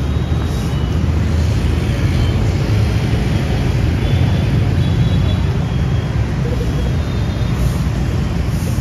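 Steady street traffic noise with a heavy low rumble of passing engines.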